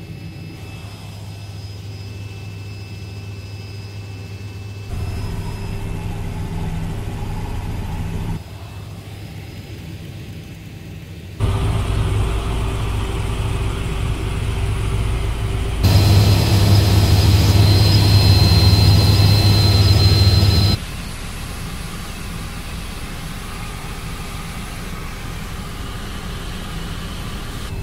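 Helicopter engine and rotor noise heard from inside the cabin: a steady drone with a low hum and a thin high whine. It steps abruptly louder or quieter several times and is loudest for about five seconds past the middle.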